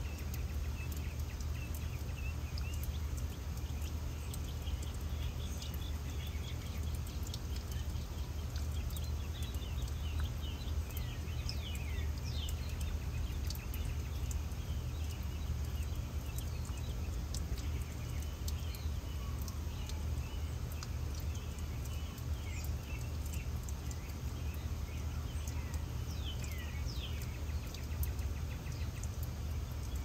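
Garden ambience: a water fountain running in the wind, a steady low rumble underneath, with birds chirping on and off throughout in short falling chirps.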